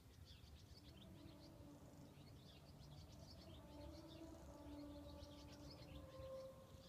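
Faint, low droning hum made of several steady tones that slowly shift in pitch, coming from the sky from an unidentified source. Birds chirp over it throughout.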